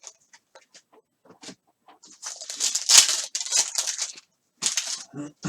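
Trading cards being handled during a box break: a few light clicks, then a couple of seconds of crinkly rustling, with a shorter burst of rustling near the end.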